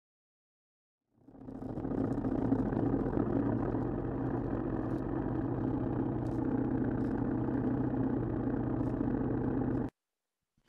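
A dirt bike's engine running steadily. It fades in about a second in and cuts off abruptly near the end.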